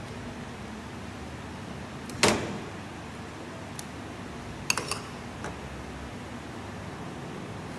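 Kitchen utensil clatter over a steady background hiss: one sharp knock about two seconds in, then a quick run of three or four lighter clicks about five seconds in.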